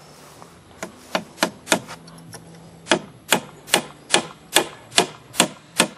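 Hammer driving a nail into a wooden frame pole: four quick blows, a pause of about a second, then a steady run of blows about two and a half a second.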